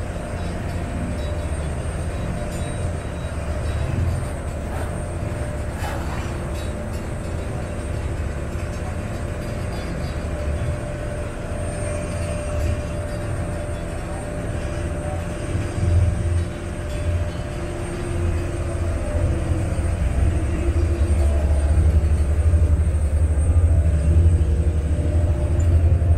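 Passenger water bus under way: its engine drones as a steady low rumble with a thin constant whine above it, over the wash of water along the hull. The rumble swells louder in the last few seconds.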